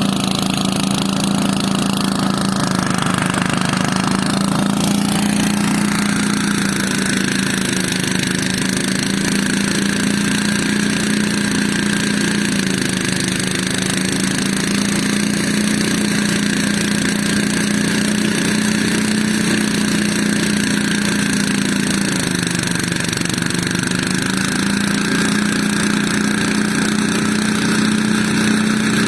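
An engine running steadily at a constant speed, its pitch sagging briefly twice as if under load, with some higher-pitched noise in the first few seconds.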